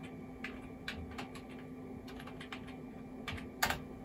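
Keys tapped one by one on a computer keyboard at an unhurried pace as a web address is typed in, with one louder key strike near the end.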